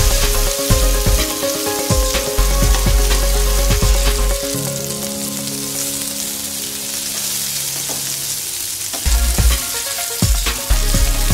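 Sliced onion, garlic and chilies sizzling in oil in a non-stick frying pan while a steel spatula stirs them, scraping and knocking against the pan; the strokes thin out for a few seconds in the middle while the sizzle carries on.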